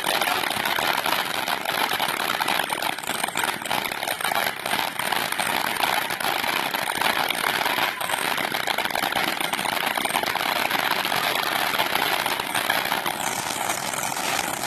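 Consumer firework cake firing a rapid, continuous volley of crackling shots.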